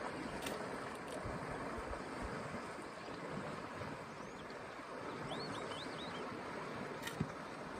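Steady outdoor rushing noise, with a few faint, high bird chirps about five seconds in.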